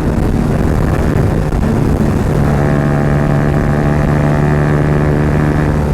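Yamaha R15's 155 cc single-cylinder engine running through a loud Akrapovic exhaust under riding load. The note breaks up for the first couple of seconds, as in a gear change, then settles to a steady drone.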